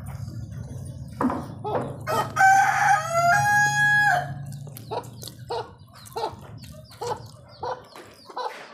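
A rooster crows once, a long drawn-out crow of about two seconds starting a little over two seconds in. Close wet chewing and mouth clicks from eating by hand go on around it.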